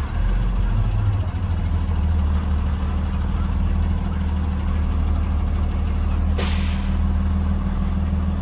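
2020 Blue Bird Vision school bus engine running steadily with a low drone, heard from on board. A short burst of hiss cuts in about six seconds in.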